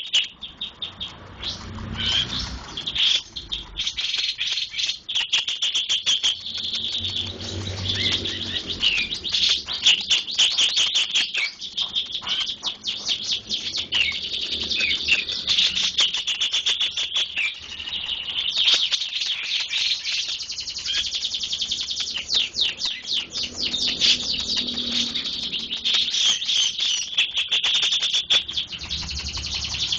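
Small songbird singing a fast, high-pitched stream of chirps and ticking notes, broken by short pauses.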